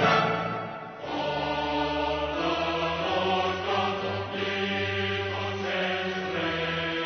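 Slow choral chant music, voices singing long held notes over a sustained low note, with a brief dip about a second in.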